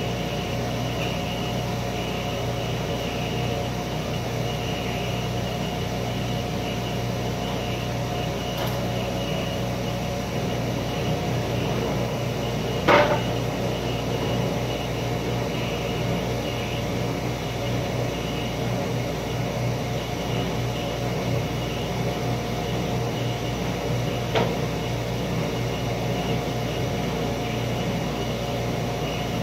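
Steady hum of woodworking machinery running, holding a few fixed tones. About 13 seconds in there is a single sharp knock of a wooden panel being set down or struck, and a lighter knock comes near the end.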